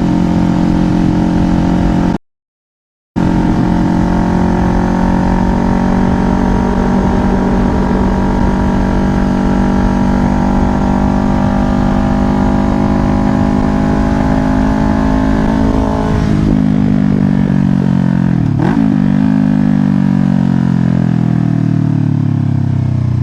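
Kawasaki Ninja 500's parallel-twin engine running at a steady cruise, with wind rumble on a helmet-mounted mic. The sound drops out completely for about a second near the start. About two-thirds of the way through, the engine note falls steadily as the bike slows, with one short rise in pitch partway down.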